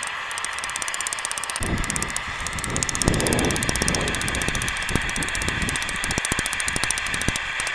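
Hammer blows on a red-hot strip of lawnmower-blade steel on an anvil, over the steady hiss of a gas forge and a fast, even ticking.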